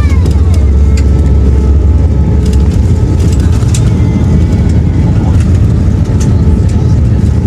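Steady, loud low rumble of airliner cabin noise in flight, with a few light clicks.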